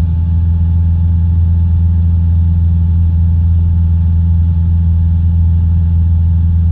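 Single-engine light aircraft's engine and propeller droning steadily at a constant pitch, heard inside the cockpit in flight.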